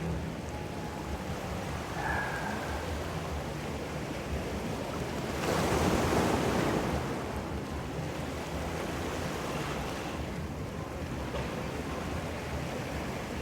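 Ocean surf washing ashore, with one louder wave breaking about halfway through. Wind rumbles on the microphone underneath.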